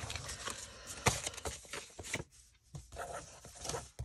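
Loose papers and cardstock being handled and shuffled: short rustles with light taps and clicks, pausing briefly a little past the middle.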